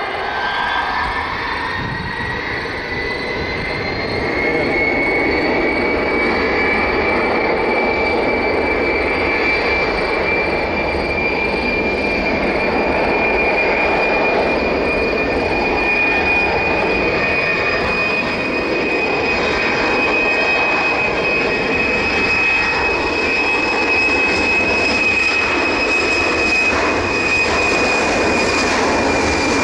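The three Kuznetsov NK-8 turbofans of a Tupolev Tu-154B-2 spooling up to takeoff power: a high whine rises over the first few seconds, then holds steady over a loud roar.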